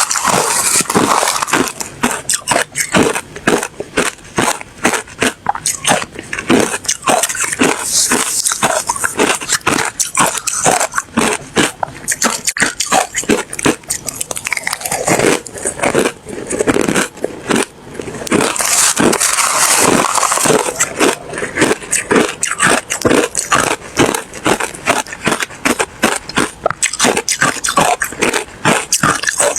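Ice being chewed close to the microphone: rapid, loud, crunchy bites, several a second.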